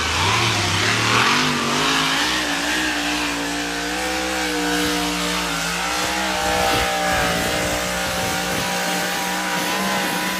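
An engine revving up over about two seconds, then running at steady high revs.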